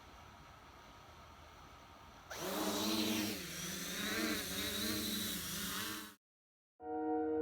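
MJX Bugs 2 quadcopter drone's motors and propellers buzzing in flight, the pitch wavering up and down as the throttle changes; the buzz starts loud about two seconds in after a faint hiss and cuts off abruptly about six seconds in. Ambient music with long held tones begins near the end.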